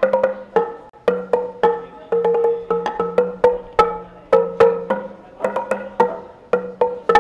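Txalaparta played by two players: upright wooden sticks struck down onto wooden planks in a quick, uneven rhythm of several strokes a second. The planks give two ringing tones, one low and one higher, each stroke dying away briefly.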